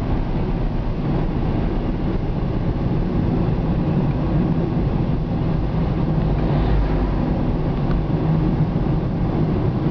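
Cabin noise of a moving car: a steady, low-pitched hum of the engine and tyres on the road, heard from inside.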